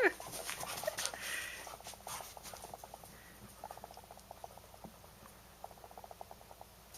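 A dog and a cat play-fighting: a short high cry right at the start, then runs of rapid soft pattering, about ten beats a second, that come and go.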